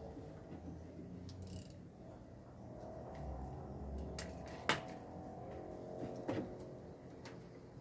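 A few sharp metal clicks and light knocks from tools and washing-machine parts being handled during disassembly, the loudest about halfway through, over a faint low hum.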